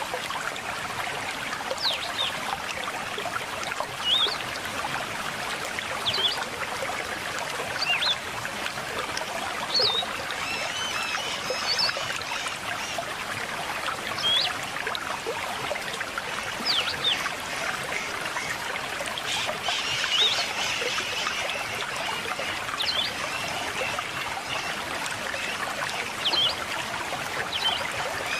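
River water babbling steadily, with a bird giving short, sharp chirps about every two seconds and other birds twittering briefly a third of the way in and again just past the middle.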